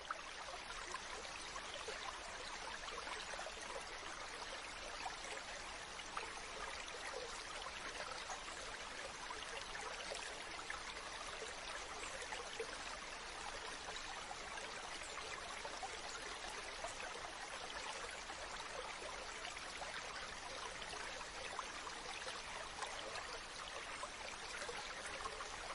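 Stream running over rocks, a steady babbling and splashing of water.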